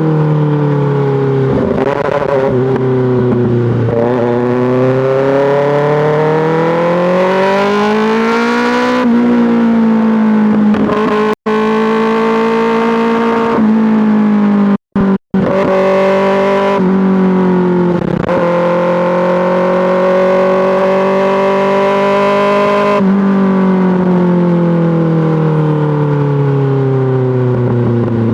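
2024 Kawasaki ZX-6R's inline-four running through an M4 GP slip-on exhaust on the road: the exhaust note falls off, then climbs with the throttle, steps at gear changes, holds a high steady pitch and falls away again near the end as the bike slows. The sound cuts out completely for a split second about eleven seconds in and twice more around fifteen seconds.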